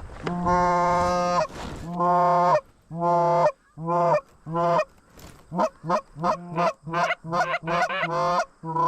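Canada goose call blown by a hunter to lure geese in toward the decoys: one long drawn-out note, then a run of separate honks that quicken to about three a second toward the end.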